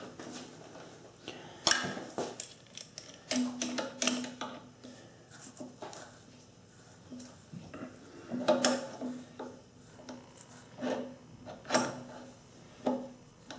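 Metal parts of a South Bend drill press's quill return spring assembly clicking and clinking as the side nut and coil spring bracket are fitted by hand. The clicks come in small scattered groups.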